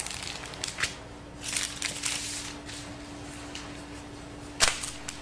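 Parchment paper rustling and crinkling in short bursts as sheets of salt-crust dough are handled on it, with one sharp knock near the end.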